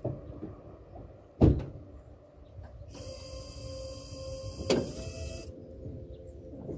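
Live freshwater fish flopping in plastic crates: a loud thump about a second and a half in and another about three seconds later. A steady mechanical whir runs for a couple of seconds from about three seconds in.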